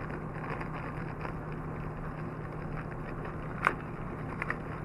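Plastic clicks from handling the Temp Stick sensor's battery cover: one sharp snap about three-quarters of the way through, then two small clicks shortly after. A steady low hum runs underneath.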